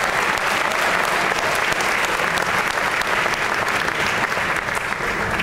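Audience applauding, a steady dense patter of many hands clapping that thins out near the end.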